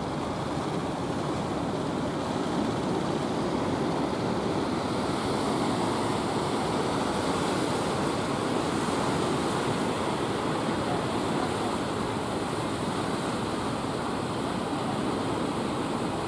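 Ocean surf breaking and washing onto the shore in a steady rush.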